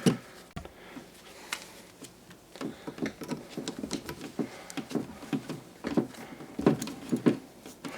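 Hands twisting copper ground wires together and screwing on a wire nut: a sharp click at the start, then from about two and a half seconds in, a run of irregular small clicks and rustles.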